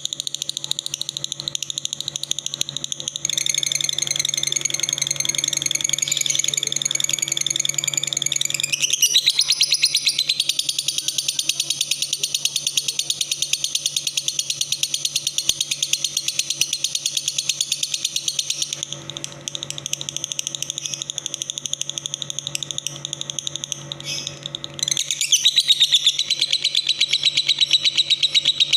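Insects, crickets or cicadas, stridulating in a continuous high, rapidly pulsed trill whose pattern shifts several times, over a faint steady low hum. This is typical of the insect sounds played as 'isian' song material for training songbirds.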